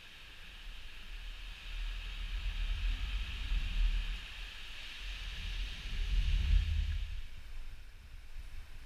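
Wind gusting on the microphone: a low buffeting rumble that swells about two seconds in and peaks twice near the middle, over a steady high hiss of wind.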